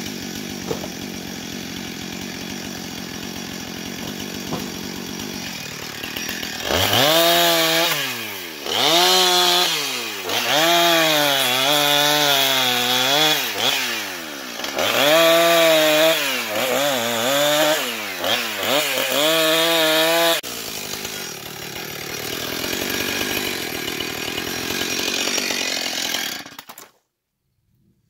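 Two-stroke Husqvarna chainsaw with an X-Cut chain cutting oak slab wood. It idles at first, then is revved hard through several cuts, its pitch dipping under load and climbing again with each one. It settles back to idle and is switched off, cutting out suddenly about a second before the end.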